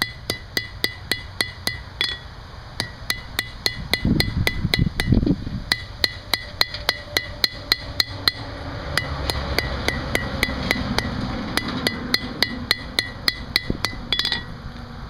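Hand hammer striking hot steel on an anvil in a steady rhythm of about three to four blows a second, each blow ringing. This is forging work, drawing out and tapering the split ends of a steel bolt into ram's horns. The blows stop shortly before the end.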